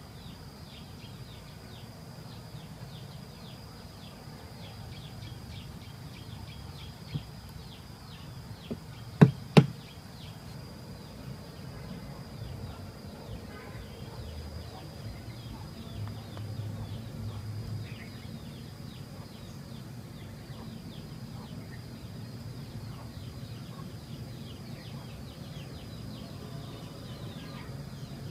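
Steady high-pitched insect buzz with faint repeated chirping. Two sharp knocks about half a second apart, some nine seconds in, are the loudest sounds.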